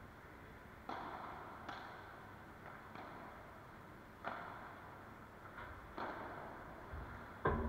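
Padel rally: a padel ball hit back and forth with rackets and bouncing off the court and glass walls, about eight sharp pops at irregular intervals, each with a short echo of the hall. The loudest hit comes near the end.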